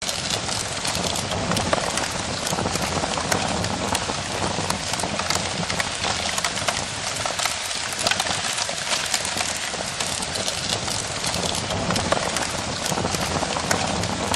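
Fire crackling: a steady rushing hiss dotted with many sharp pops and snaps.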